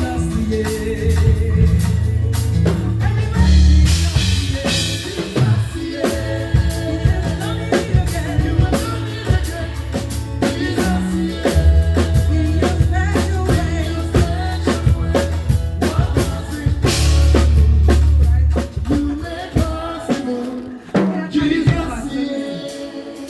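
Live church band playing an upbeat gospel song, a drum kit keeping a busy beat under sustained low bass notes; the band eases off a little near the end.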